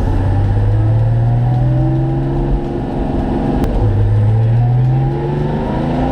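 Porsche 914's 964-based 3.8 L air-cooled flat-six accelerating. Its pitch climbs steadily, drops back a little over two seconds in, and climbs again from about four seconds in.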